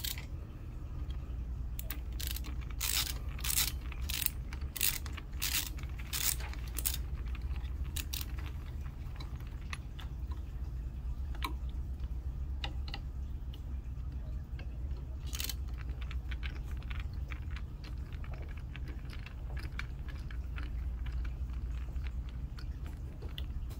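Hand screwdriver backing Phillips screws out of a plastic scooter tiller console, with small parts handled: a quick run of sharp clicks a couple of seconds in, then scattered clicks and rattles over a low steady hum.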